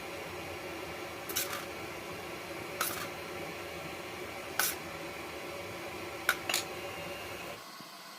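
Five short light clicks or taps, spaced about one to two seconds apart, over a steady background hum that drops away suddenly near the end.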